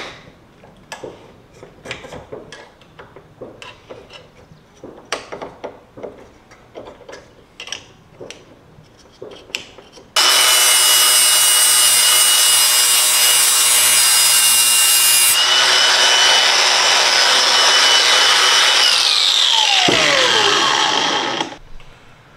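Scattered clicks and knocks of metal plates being handled and set in a bench vise. About ten seconds in, a cordless angle grinder starts suddenly and grinds the edge of a metal plate with a steady whine for about nine seconds, then the whine falls as the disc winds down.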